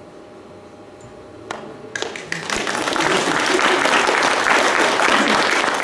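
An audience breaking into applause about two seconds in, after a single sharp click, the clapping swelling and then holding steady.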